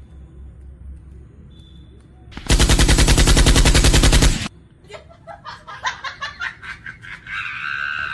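A burst of rapid machine-gun fire, a sound effect lasting about two seconds and by far the loudest thing here. A low hum comes before it.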